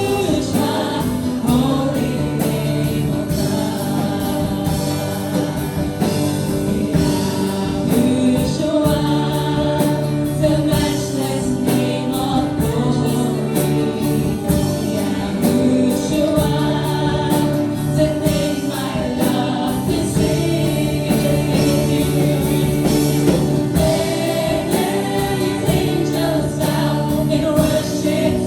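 A worship team singing a gospel worship song together, with instrumental accompaniment and percussion.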